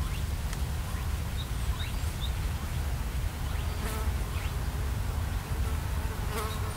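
A flying insect buzzing close to the microphone, passing about four seconds in and again near the end, over a steady low wind rumble, with a few faint high bird chirps early on.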